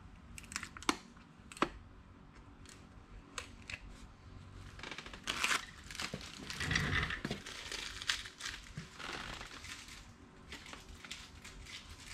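Clear plastic wrapping crinkling as it is handled, with scattered small clicks and knocks.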